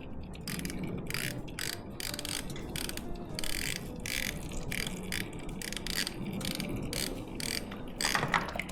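Ratchet clicking in a long run of quick strokes, about two to three a second, as a wrench turns a clamp-type oil filter wrench to loosen the oil filter, with a louder cluster of clicks near the end.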